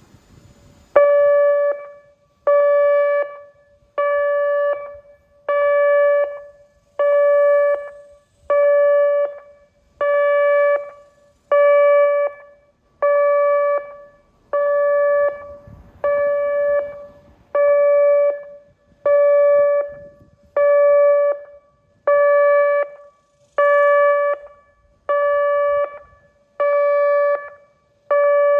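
ATI HPSS-32 electronic outdoor warning siren sounding its pulse signal in a test: a steady, mid-high tone switched on and off in blasts about a second long, one every second and a half or so, each tailing off at its end. The blasts begin about a second in.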